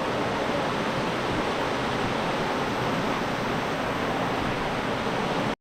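Steady rush of spring water pouring out of a cave mouth and down a waterfall. It cuts off suddenly at the very end.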